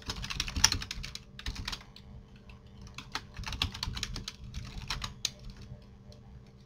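Computer keyboard being typed on: quick, irregular key clicks in short runs, thinning out near the end.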